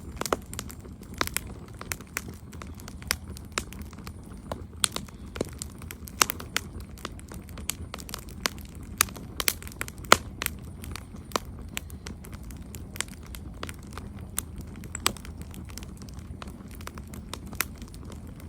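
Campfire crackling: irregular sharp pops and snaps from the burning wood, several a second, over a low steady rumble of the flames.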